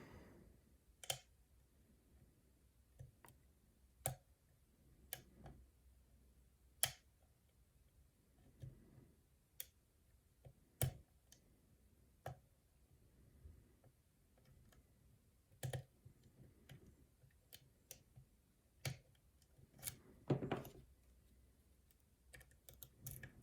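Lock pick and tension wrench working the pins of a challenge lock: faint, irregular metallic clicks, about a dozen spread out with pauses of one to three seconds between them.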